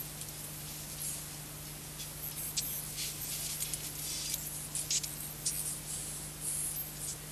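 Garbled audio from a scrambled analog pay-TV broadcast recorded off air on VHS. A steady low hum runs under hiss, with irregular thin crackles and squeaks scattered through it, busiest in the middle; no intelligible speech or music.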